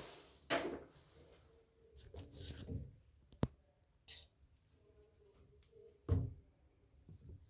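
Scattered handling noises from shower fittings and tools being worked by hand: a scrape near the start, a sharp click about three and a half seconds in, and a knock about six seconds in.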